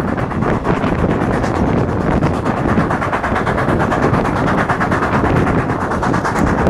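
Steam train running at speed, heard from a carriage window: a loud, steady rushing noise with a fast, even beat of roughly eight strokes a second.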